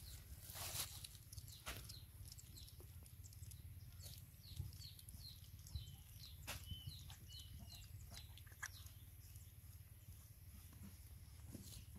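Faint, scattered clicks and rustles of puppies eating from a shared bowl, with a run of short high chirps in the middle.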